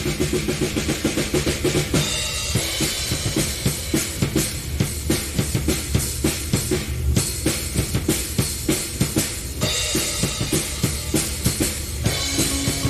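Keyboard and drum kit jamming in a progressive-rock style: a busy drum pattern of kick, snare and cymbals runs throughout, with held keyboard chords in the first couple of seconds and again near the end.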